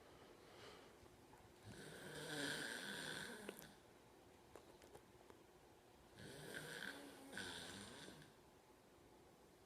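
Sleep snoring: two long snores about four seconds apart, each a low droning pitch under a raspy hiss, with a few faint clicks between them.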